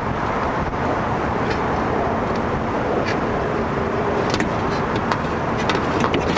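Steady vehicle and traffic rumble, with scattered light clicks and taps from hands working a power window motor loose inside a car door.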